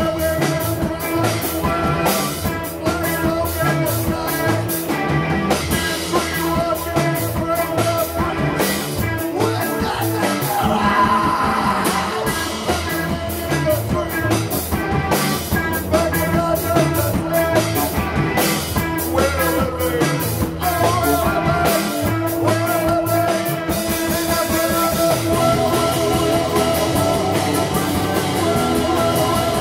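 A rock band playing live through a small club's PA: drum kit and electric guitar with keyboard, and a voice singing.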